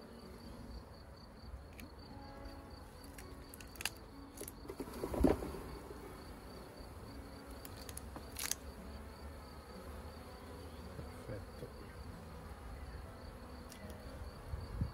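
Honeybees buzzing steadily around an open hive while frames of comb are lifted out. A few sharp wooden knocks and clicks from the frames being handled come through, the loudest about five seconds in.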